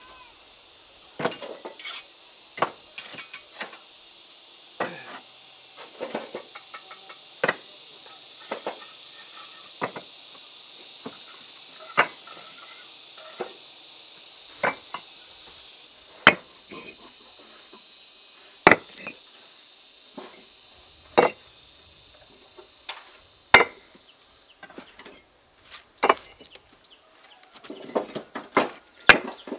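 Hand tools knocking and tapping on building materials: irregular sharp strikes, one every second or two, louder in the second half, with a quicker cluster near the end.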